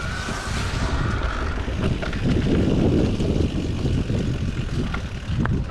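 Riding noise from a Niner e-RIP 9 e-mountain bike on a dirt trail: tyres rumbling over the ground and wind rushing past the microphone, with a faint steady whine in the background. The rumble grows heavier about two seconds in.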